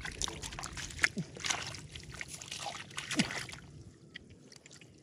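Hands splashing and sloshing through shallow muddy paddy water in quick, irregular splashes that die down near the end.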